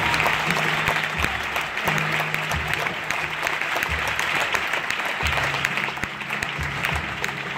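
Dense, continuous hand clapping over flamenco music, with low held instrument notes underneath.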